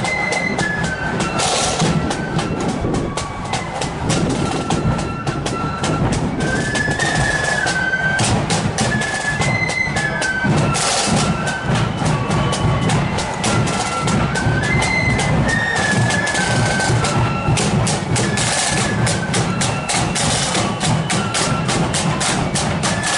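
Marching flute band playing a march: flutes carry a stepping melody over steadily beaten drums.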